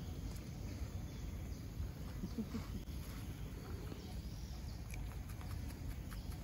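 A young macaque's brief, soft call about two and a half seconds in, over a low, steady rumble, with a few faint clicks later on.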